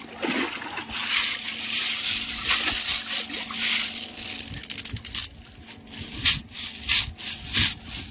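Water splashing and sloshing, with a run of short, sharp splashes in the second half.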